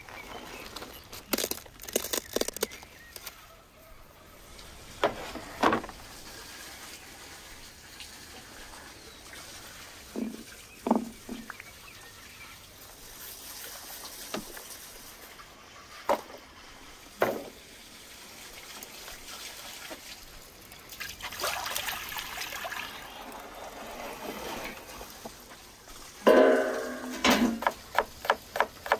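A run of hand food-preparation sounds: scattered handling knocks and rustles, then a brief loud pitched squeak-like sound. It ends with a chef's knife chopping green tomato on a wooden cutting board in quick regular strikes, several a second.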